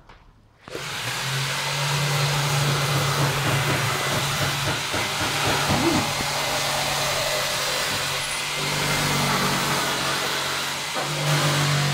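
Steady rush of air over a low motor hum from an electric blowing appliance, switching on abruptly about a second in.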